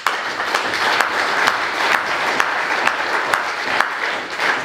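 Audience applauding: dense, steady clapping that breaks out suddenly and holds at an even level.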